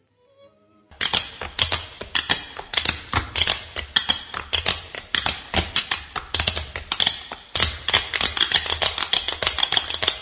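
A rapid, irregular clatter of sharp clicks and knocks, several a second. It starts about a second in and breaks off briefly a little past the middle.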